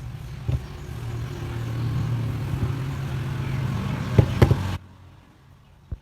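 A steady low machine hum with a hiss above it and a few sharp clicks, the loudest two close together near the end, before it cuts off suddenly.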